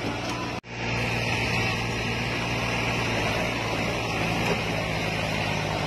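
Diesel tractor engines running steadily under load while towing a stuck combine harvester by rope. The sound cuts out for a moment about half a second in, then the engines run on.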